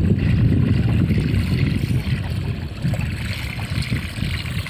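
Wind buffeting the microphone in a low, uneven rumble, with a fainter hiss above it.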